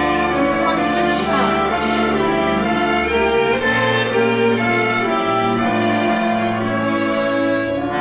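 Instrumental music for a stage musical, led by bowed strings playing sustained chords at a steady level.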